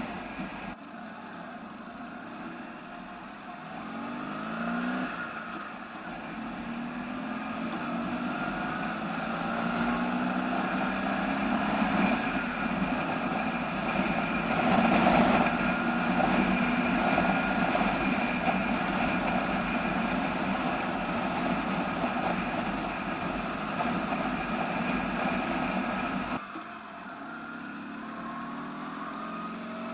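Ural flat-twin engine on a sidecar motorcycle under way, its note climbing as it accelerates and dropping at gear changes, running with its ignition timing just advanced. The sound changes abruptly about a second in and again near the end.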